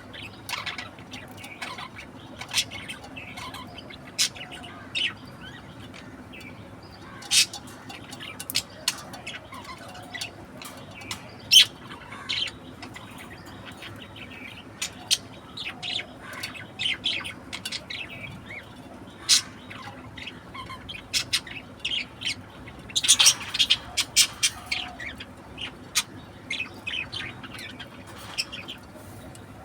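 Budgerigar chirping and squawking in short, sharp calls at irregular intervals, with a dense flurry of calls about two-thirds of the way through.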